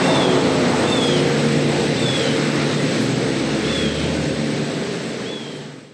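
A steady rushing outdoor noise with the faint steady drone of distant Sentry 3V8 outdoor warning sirens sounding an alert underneath. A short high chirp comes every second or so, and everything fades out at the end.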